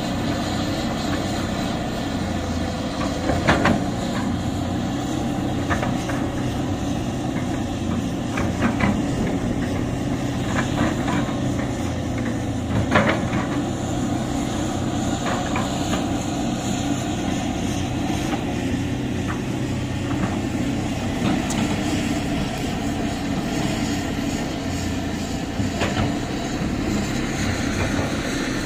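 Heavy diesel machinery running steadily: a Hyundai crawler excavator working beside an Isuzu dump truck. Sharp metallic clanks break through now and then, the loudest about 3.5 and 13 seconds in.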